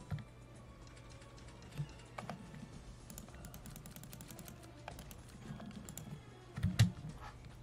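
Light clicks and taps of a computer mouse and keyboard, scattered at first, then a quick run of small clicks in the middle, with one louder knock near the end.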